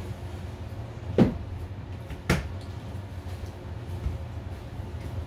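Two sharp knocks on a hard surface about a second apart, over a steady low hum.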